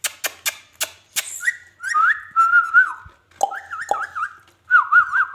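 A quick run of sharp clicks, then warbling whistled notes in phrases with fast up-and-down trills, going on to the end.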